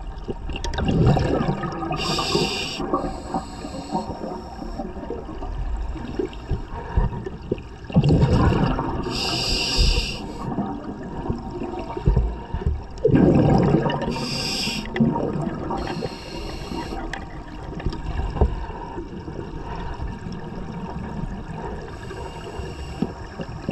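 Scuba diver breathing through a regulator underwater: bursts of exhaled bubbles alternate with hissing inhalations, about four breaths several seconds apart.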